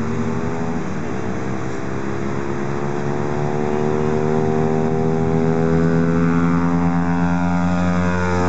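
Yamaha YBR 125 Factor's single-cylinder four-stroke engine through a Roncar Aluminium RS aftermarket exhaust, pulling hard under acceleration. After a short dip in pitch about a second in, the exhaust note climbs steadily for several seconds.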